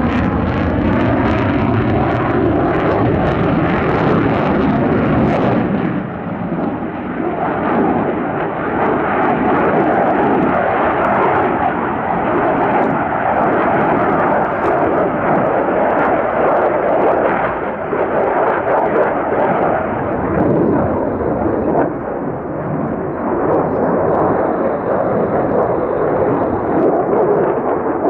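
Lockheed Martin F-35A Lightning II jet engine noise during a display pass: a whine gliding up in pitch in the first couple of seconds, then a loud, ragged roar with crackle that carries on, its hiss dulling after about six seconds as the jet draws away.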